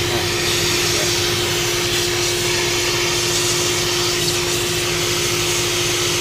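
Shop vacuum running steadily with a constant motor whine over a rushing hiss, its hose nozzle worked over an engine's cylinder head.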